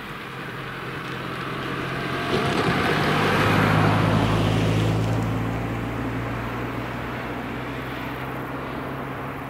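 A car drives past over the level crossing, its engine and tyre noise building to a peak about four seconds in and then fading. A short knock comes a little over two seconds in.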